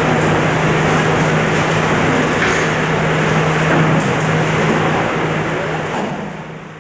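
Steady din of a fish auction hall during hand sorting of fish into crates, with a constant low hum under it. It fades out near the end.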